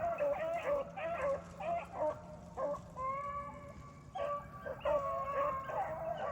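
A pack of rabbit hounds baying and barking together, several voices overlapping in long wavering notes and short barks, as the dogs run a rabbit.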